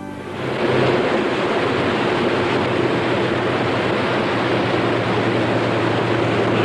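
A lifeboat running at speed: the steady rush of its churning wake with a low engine drone underneath, coming up within the first second as the music ends.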